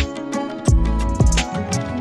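Background music with a steady beat and plucked-string instruments.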